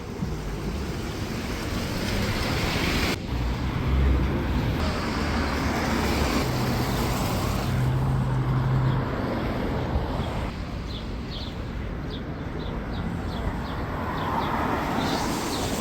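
Street traffic: vehicles passing with steady road noise and a low engine drone, strongest in the middle. A bird chirps repeatedly in the last few seconds.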